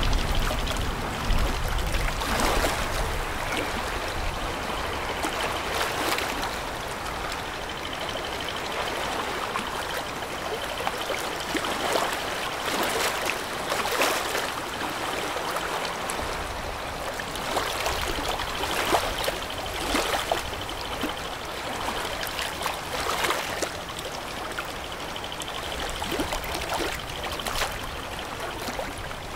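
Water washing and splashing in uneven surges every second or two: the wake of a passing container ship breaking against the riverbank.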